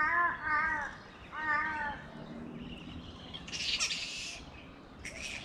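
Three drawn, crow-like calls in the first two seconds, then harsh screeches from a roosting flying-fox colony: one longer screech just past the middle and a short one near the end.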